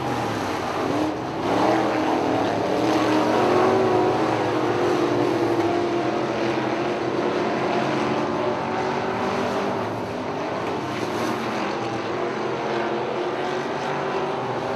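Several E-Modified dirt-track race cars' V8 engines running at racing speed around the oval, a steady mixed drone of engines. The engine note climbs about a second or two in, as the cars accelerate.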